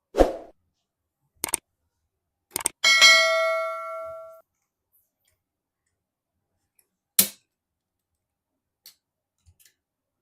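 Computer hardware being handled: a few sharp knocks and clicks, and about three seconds in a metal part clinks and rings on in several clear tones for about a second and a half before fading.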